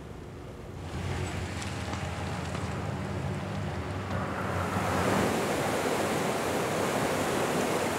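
Steady rushing of sea water and wind, swelling and growing fuller about halfway through, with a low hum underneath in the first half.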